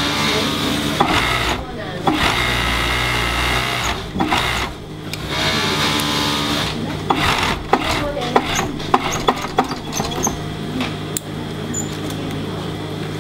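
Industrial sewing machine stitching knit T-shirt fabric, running in three or four short runs with pauses between them over the first seven seconds. It then stops, and scattered clicks and light knocks of handling follow.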